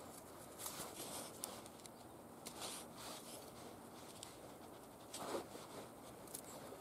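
Faint scratching and rustling of dry bramble canes as a long black raspberry cane is handled and drawn through the tangle, with a louder scrape about five seconds in.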